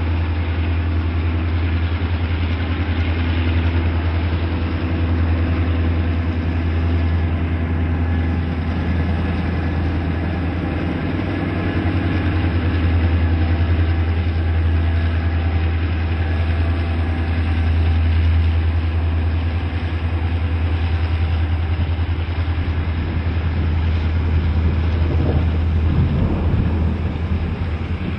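Several diesel-electric freight locomotives running in multiple as they haul a container train past, a steady deep engine drone with no letup.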